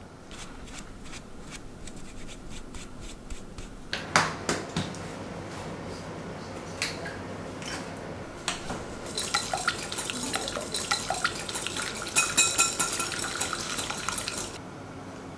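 A wire whisk beating an egg in a glass mixing bowl: a fast run of ringing clinks from about nine seconds in that stops suddenly near the end. Before it, light rapid tapping of a mesh sieve sifting flour, then a few sharp knocks as an egg is cracked on the bowl.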